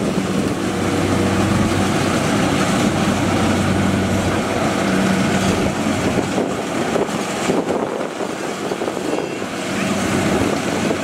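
Kubota DC-70 rice combine harvester running steadily as it cuts rice: a continuous engine and machinery drone with a steady low hum.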